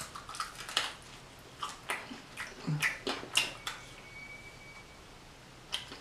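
Close-miked chewing and wet lip-smacking: a mouthful of food eaten, with a run of irregular short clicks and smacks that thins out after about four seconds.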